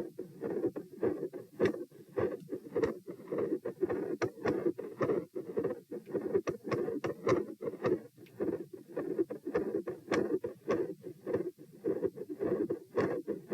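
Heartbeat recorded over the chest at about a hundred beats a minute, a pair of low thuds per beat with a machinery-like continuous murmur running between them.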